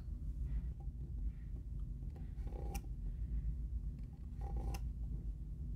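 Faint clicks and taps of small hand tools, pliers and a craft knife, handling small cured silicone rubber plugs, over a low steady hum. A couple of slightly sharper clicks come about halfway through and again later.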